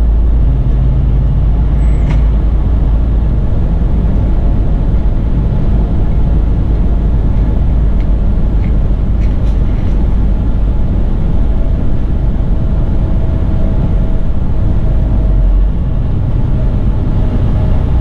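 Semi truck driving at road speed, heard from inside the cab: a steady low engine and road rumble.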